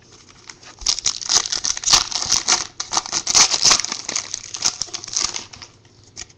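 Foil trading-card pack wrapper being torn open and crinkled by hand: a dense crackling from about a second in that dies away near the end.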